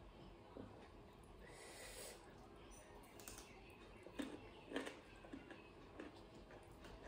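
Raw cucumber being bitten and chewed: a few short, crisp crunches, the two loudest a little after the middle, amid soft mouth noises.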